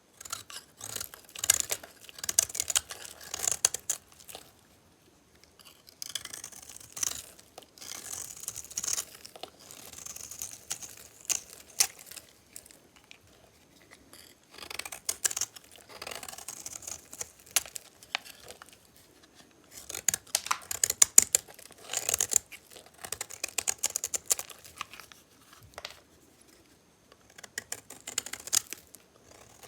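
A blade cutting through bars of dry soap, each stroke a run of crisp crackling and scraping, in repeated bouts separated by short pauses.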